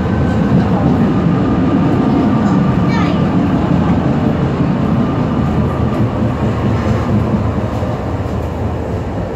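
Düwag N8C-NF articulated tram running on its rails, a steady rumble of wheels and running gear. About three seconds in, a brief sound falls in pitch, and the rumble eases a little near the end.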